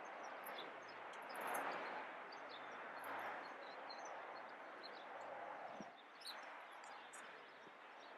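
Faint outdoor ambience: a low, even background hiss with scattered short, high bird chirps.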